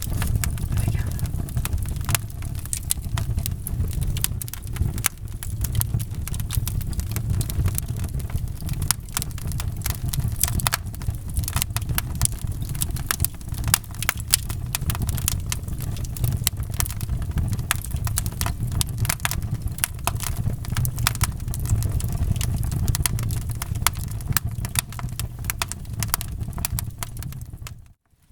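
Fireplace wood fire crackling, with many sharp pops over a steady low rumble. It cuts out abruptly near the end.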